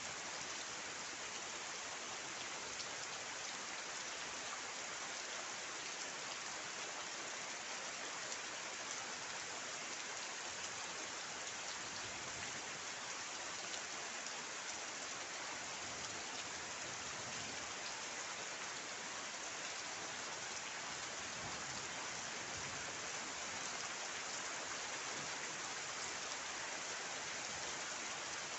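Steady rain falling, an even wash of drops with no breaks or thunder.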